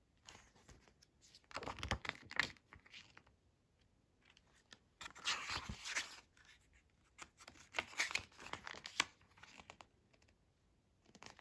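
Paper pages of a photobook being turned by hand, rustling and flapping in three bursts of a second or two each.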